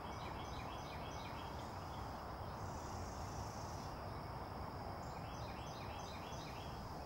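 Faint pond-side ambience: a steady high insect drone, with runs of short repeated chirps near the start and again after about five seconds, and a brief higher buzz in the middle.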